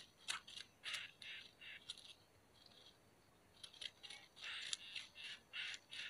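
Short, harsh, rasping calls from a greater coucal nest, in quick strings with sharp clicks among them: a cluster over the first two seconds, then a denser run from about three and a half seconds on.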